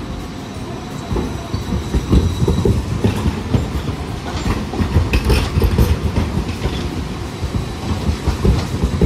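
Green Mover low-floor articulated tram rolling past, its wheels clattering and knocking unevenly over the track, building up from about a second in.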